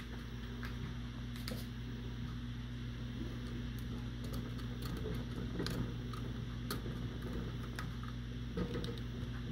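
Metal jar lifter clicking and clinking against Ball pint canning jars as they are gripped and lifted out of hot water in a water-bath canner. A dozen or so scattered sharp clicks sound over a steady low hum.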